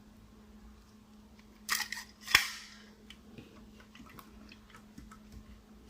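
Clicks and one sharp clack of a die-cast scale model truck and trailer being handled and set down, with a few light ticks after.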